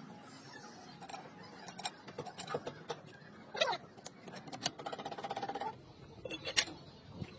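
Steel gearbox parts clinking as a heavy ring gear is handled and lowered onto a planetary gear set, with a short fast rattle about five seconds in and a sharper metal knock near the end.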